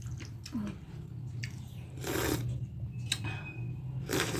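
A person eating close to the microphone, chewing a mouthful of gundruk soup and dhido with soft wet mouth noises. There are two short louder bursts, one about two seconds in and one near the end, over a steady low hum.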